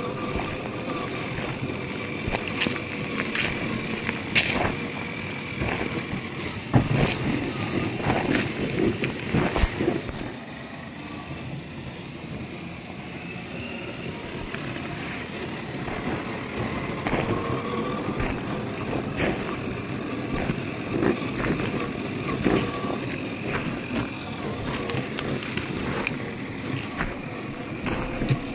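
1/10-scale RC crawler trucks driving over loose gravel: a faint electric-motor and gear whine that slowly rises and falls in pitch with the throttle, under frequent crunching and clicking of tyres on stones. The crunching is louder during the first third.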